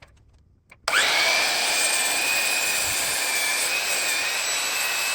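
Electric miter saw starting up about a second in, its motor whine rising and then holding steady as the blade cuts into a 6x6 timber post. The post is too thick for the blade to cut through in one pass.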